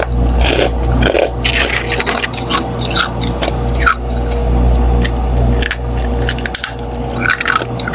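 Freezer frost chunks being bitten and chewed close to the microphone: quick, irregular crunches and scrapes of packed ice crystals, over a steady low hum.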